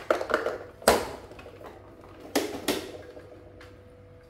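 Hard plastic toy truck parts knocking and clacking as they are handled, with a few sharp knocks: the loudest about a second in, and two more close together about two and a half seconds in.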